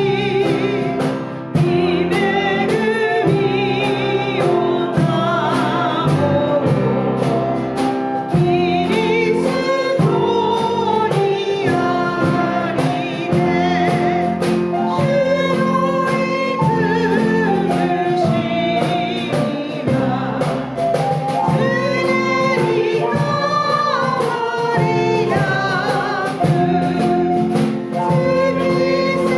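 Congregation singing a hymn together over steady held chords of instrumental accompaniment, phrase after phrase with short breaks between lines.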